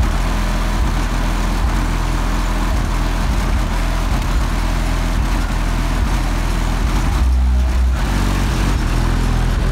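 Two Skar ZVX 12-inch subwoofers in a ported box tuned to 28 Hz, driven at 1 ohm by a Hifonics Brutus Elite amplifier, playing a bass-heavy song at full volume, heard from outside the closed car. The deep bass comes in suddenly at the start and stays loud and steady, with one heavier, deeper bass hit about seven seconds in.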